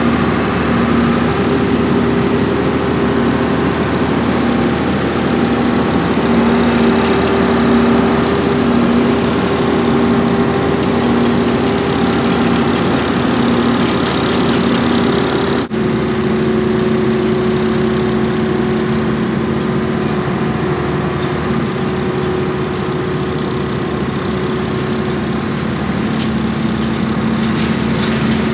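Diesel power pack of a self-propelled modular transporter running steadily under a heavy steel roof truss segment. Its hum pulses regularly in the first half, breaks off for an instant about halfway, then carries on steadier.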